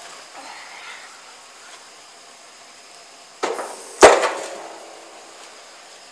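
Boss straight-blade steel snowplow being lowered and dropping onto the ground: a short rattle about three and a half seconds in, then one loud clank that rings briefly and fades.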